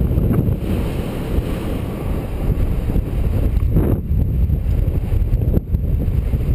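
Strong wind buffeting the microphone: a loud, steady low rumble with gusty flutter.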